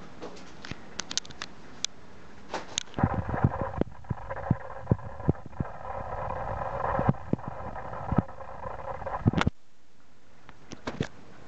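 Close clicks and knocks of a handheld camera being moved and handled. A steady mid-pitched hum starts suddenly about three seconds in and cuts off abruptly near the end.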